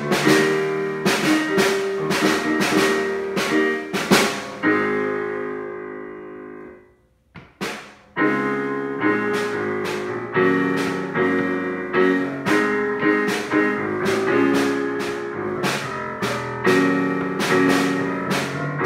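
Digital keyboard playing piano chords with a boy playing along on a Gretsch drum kit, drum and cymbal hits keeping time. About four seconds in, a held chord fades out to a brief near-silence, and the two start playing again about eight seconds in.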